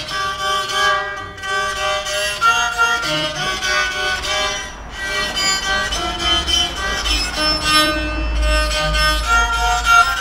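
A bowed-metal sound sculpture, a violin bow drawn across metal tabs set up a wooden column. It plays a run of sustained, ringing pitched notes, the pitch changing every fraction of a second. A low rumble swells underneath in the later part.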